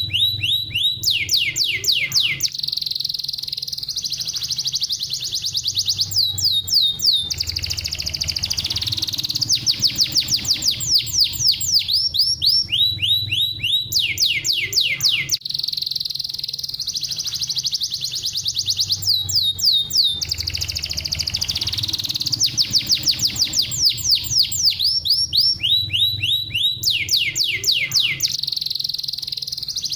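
Domestic canary singing continuously: high-pitched song of fast, tight trills, runs of rapid falling notes alternating with rolling tours. The same run of trills recurs several times.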